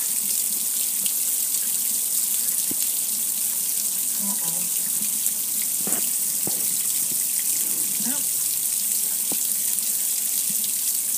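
Heavy water pouring steadily down onto a gas grill, splashing off its lid and control panel onto the patio below as a constant hiss.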